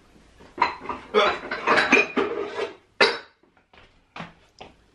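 Crockery and cutlery clattering at a kitchen sink during washing up: a busy run of clinks and knocks for about two seconds, then a few separate clicks near the end.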